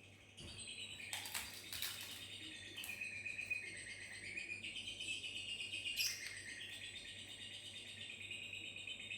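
Lovebird ngekek: a long, rapid chattering trill that goes on almost without a break, coming in suddenly just after the start and shifting a little in pitch. A few sharp clicks sound within it, in the first two seconds and again around six seconds.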